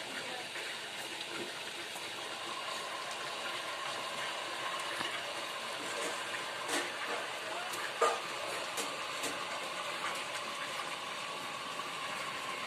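Small tube-well drilling rig running: a steady rushing of water pumped through the hose and drill pipe, with a faint steady whine. A couple of short knocks come about seven and eight seconds in.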